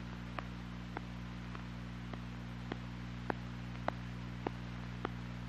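Steady background hiss and low electrical hum of an old film soundtrack, with faint, fairly regular clicks a little under twice a second.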